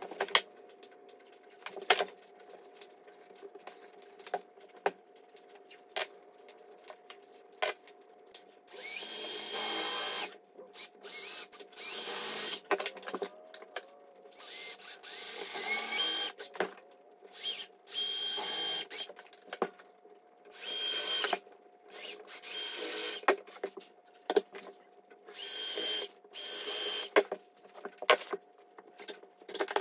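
Scattered light knocks and clicks for the first several seconds. Then a cordless drill runs in about ten short bursts of one to two seconds each, drilling into the wooden braces of a table leg frame.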